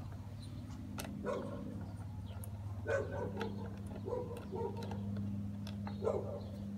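Small metal clicks and scrapes of a hand socket driver working a terminal-adapter bolt on a 12-volt lithium battery, over a steady low hum. A dog barks faintly a few times.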